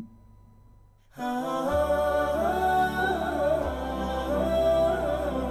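Title music: a wordless hummed vocal melody in several voices over a steady low drone. It starts about a second in, after a brief near-silence.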